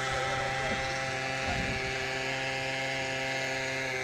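Century 800-size gas-powered RC helicopter's small gasoline engine running at a steady, constant speed: an even, unchanging drone.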